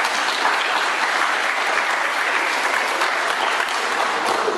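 Audience of schoolchildren clapping steadily, beginning to die down at the very end.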